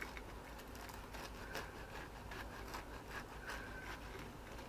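Kitchen knife sawing through the crisp breadcrumb coating of an air-fried Scotch egg: faint scratchy crunching with many small clicks.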